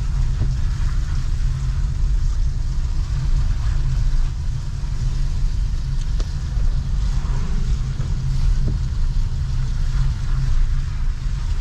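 Street ambience in heavy rain: a steady low rumble of traffic with a faint hiss of rain above it.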